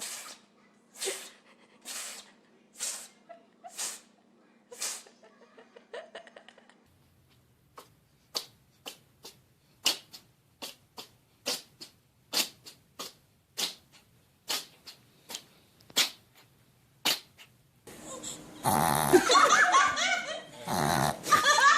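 A small animal sneezing over and over, about once a second at first, then a quicker, uneven run of short, sharp sneezes. Near the end, loud laughter breaks in.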